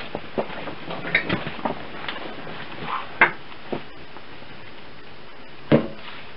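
Scattered knocks and clicks of a potter handling things at his wheel, with a sharp knock about three seconds in, then a heavy thud near the end as a lump of clay is slapped down onto the wheel head.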